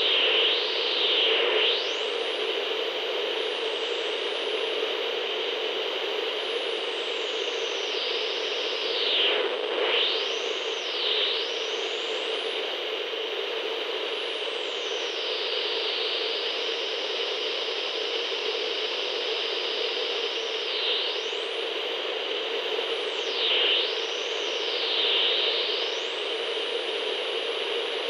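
CB radio static: a steady hiss with a whistling tone that sweeps up and down in pitch, swooping low several times and settling into a high steady whistle near the end, like a receiver being tuned across the band.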